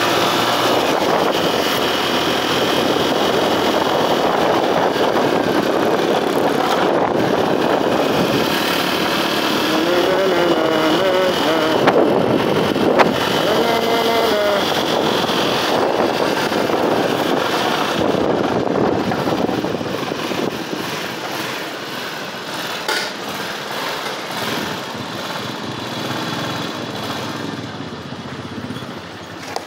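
Motorcycle ridden along a street, its engine under the rush of wind over the microphone. It grows quieter as the bike slows, about two-thirds of the way through.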